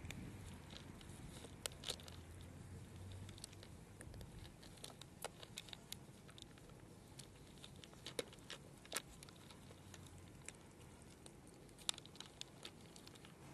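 Cats chewing dry kibble, a quiet run of small irregular crunching clicks.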